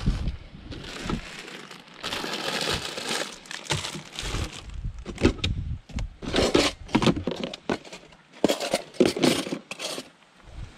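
Plastic bags crinkling as cookware is shifted around in a drawer, then a run of short knocks and clatters as pans and plastic and glass food containers are lifted and set down, the loudest near the end.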